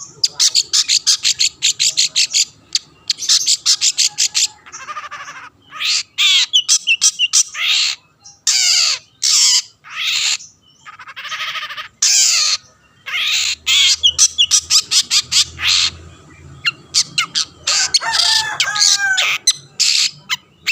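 Long-tailed shrike (cendet) in full song: loud bursts of fast, harsh repeated notes run together with varied warbled and whistled phrases, broken by short pauses.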